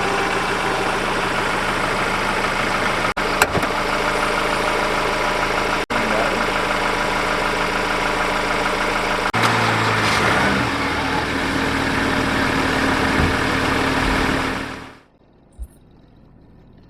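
Vehicle engine running steadily, heard in several short joined segments, before fading out quickly about 15 seconds in.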